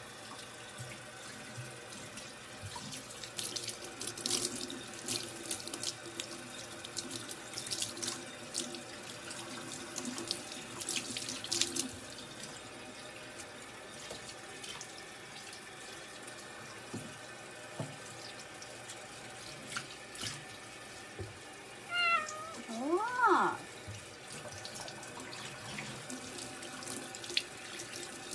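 Kitchen tap running into a stainless steel sink as a cat is washed under the stream, with splashing as hands work water through its fur. About three-quarters of the way through, the cat meows twice in quick succession, the second cry rising and then falling.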